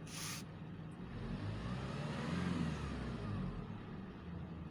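Hyundai H100 diesel engine running after a Delphi injector repair, with its idle now steady. About halfway through it revs up briefly and settles back. A short hiss is heard right at the start.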